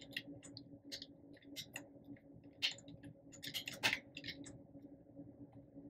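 Faint computer keyboard typing: irregular key clicks for about four and a half seconds, then only a few, over a faint steady hum.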